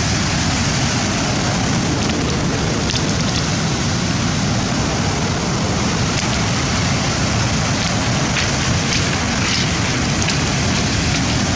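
Steady rushing noise of rough sea surf, with wind buffeting the microphone.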